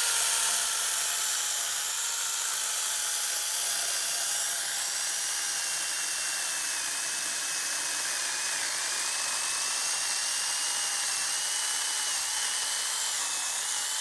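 Veitorld mini battery chainsaw running under load as it cuts through a branch about 4 inches thick. It gives a steady high-pitched whine from the electric motor and chain, and its pitch wavers and dips a little as the chain bites.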